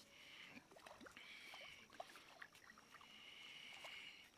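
Faint night insects trilling high and steady in stretches of about a second, broken by short gaps, over near silence with a few faint scattered clicks.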